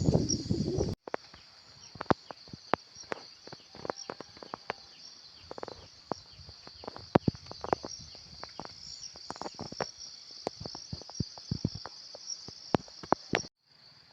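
Insects chirring steadily and high-pitched in the garden, with many sharp, irregular clicks and ticks over them. For about the first second a loud low rumble covers everything, then cuts off abruptly.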